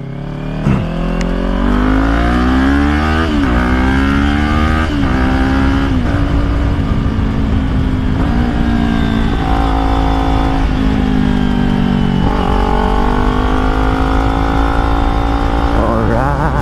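Kawasaki Ninja 400's parallel-twin engine accelerating through the gears, its pitch climbing and then dropping at each upshift, about five shifts, over a steady low wind rumble.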